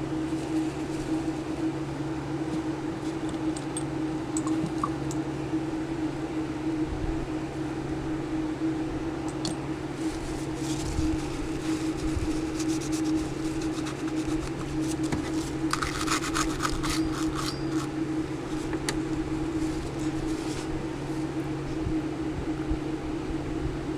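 A steady low mechanical hum throughout, with scattered light clicks of small metal tools working on a circuit board and a brief run of quick scratchy ticks about 16 seconds in.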